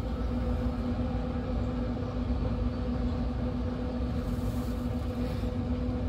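Steady hum of a running Pit Boss pellet smoker's fan, two even tones over a low rumble.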